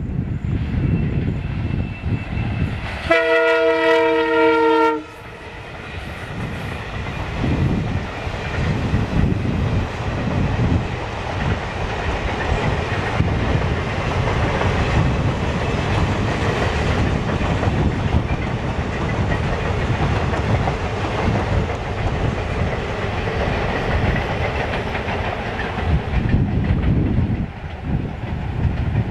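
A passenger train of blue coaches passing: about three seconds in, the locomotive sounds one steady horn blast lasting about two seconds, then the coaches roll by with a steady rumble and clickety-clack of wheels over the rail joints.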